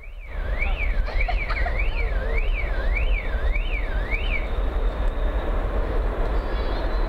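Distant jet engines of a Monarch Airbus A300-600R at takeoff power on its takeoff roll, a steady rumble and roar. Over it a warbling alarm-like tone sweeps up and down about twice a second and stops about halfway through.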